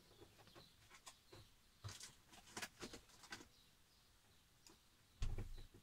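Faint scattered clicks and knocks of items being handled and put away in motorhome cupboards, with one louder, duller thump a little after five seconds in.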